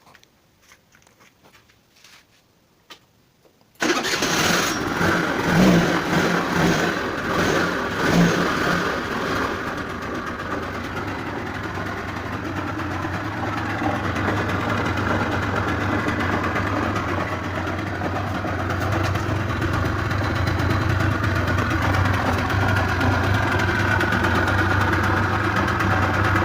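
Honda Dio 35 scooter's small two-stroke engine bursting into life about four seconds in, running unevenly for a few seconds, then settling into a steady idle. The mechanic has put the engine's transmission-side noise down to worn crankshaft main bearings and a tired gearbox bearing.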